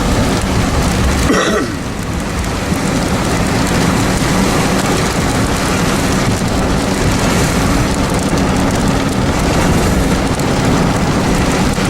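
Heavy rain drumming steadily on a Jeep, heard from inside the cabin, over the low rumble of the vehicle. A brief brighter sound stands out about a second and a half in.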